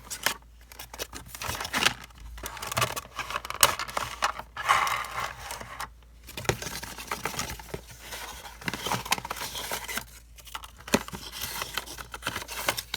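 Cardboard box being opened and handled, with irregular rustling, scraping and crinkling of packaging and scattered small clicks.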